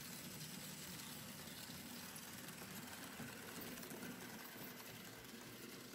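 Märklin H0 model rail bus with its trailer cars running along the track: a faint, steady whir from the small motor and wheels.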